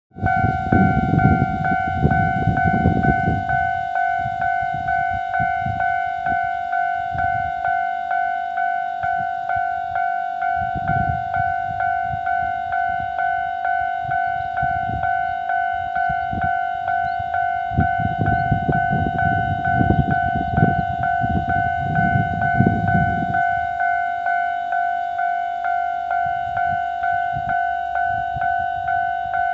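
Railway level-crossing warning bell ringing steadily, a single electronic ding pulsing about one and a half times a second. It is joined by bouts of low rumbling at the start and again about two-thirds of the way through.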